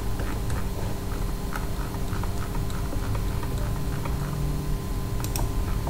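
Scattered light clicks from a computer mouse and keyboard over a steady electrical hum and low background rumble.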